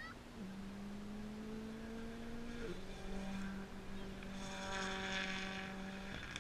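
A vehicle engine running at a steady pitch, with a rush of noise about four seconds in; both cut off suddenly near the end.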